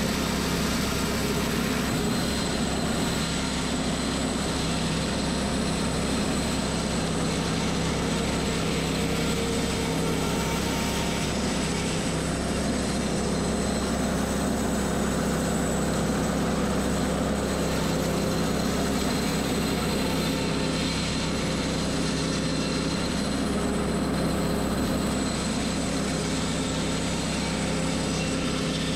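Engine-driven portable sawmill running steadily under load as its blade cuts through a bundle of upright log rounds, sawing off thin wood cookies.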